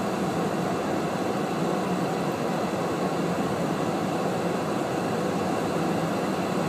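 Steady cabin noise of a car driving on snow-covered roads, an even rumble and hiss with no distinct events.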